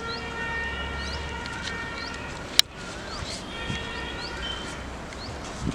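A steady siren-like tone with several pitches at once sounds for about two and a half seconds, stops, and sounds again more briefly. Small birds chirp over it, and a single sharp click comes about halfway.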